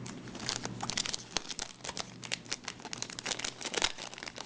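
Foil booster-pack wrappers crinkling and cards being handled in quick, irregular rustles.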